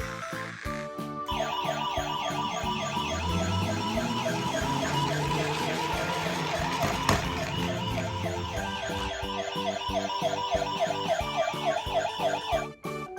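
Toy ambulance's electronic siren sounding in a fast up-and-down warble, starting about a second in and cutting off near the end.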